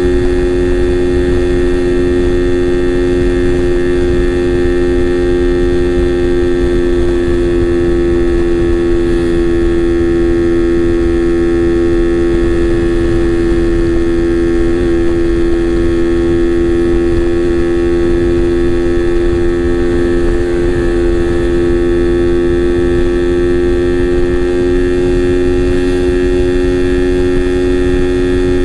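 Suzuki Raider R150 Fi single-cylinder engine running at a steady, unchanging pitch, a constant hum over a low rumble.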